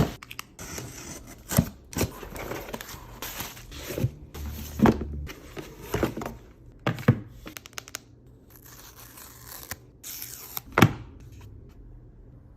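iPhone 14 Pro box being unpacked: packaging tearing and scraping in stretches, with several sharp taps and clicks as the box is handled, the loudest about eleven seconds in.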